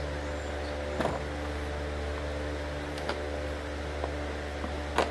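A steady mechanical hum, with a few short crinkles and clicks from the plastic MRE pouch being handled and pulled at to open it, the loudest near the end.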